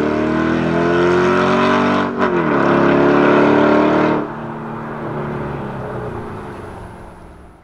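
Mercedes G500 V8 with a valved Fi cat-back exhaust accelerating hard: the engine note climbs, drops at an upshift about two seconds in, and climbs again. A little after four seconds in it falls abruptly to a quieter, lower sound that fades away.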